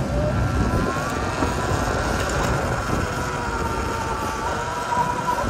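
Sur-Ron electric dirt bike riding off and gathering speed: steady wind and road rush on the handlebar microphone, with a faint high whine that rises slowly.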